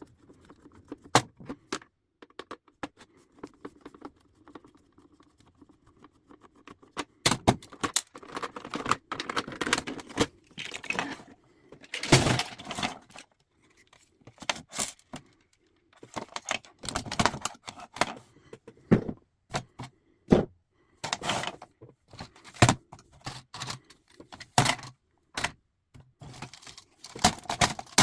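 Metal parts of an old manual typewriter clicking, clinking and rattling as it is taken apart: scattered sharp clicks at first, then denser bursts of clattering metal.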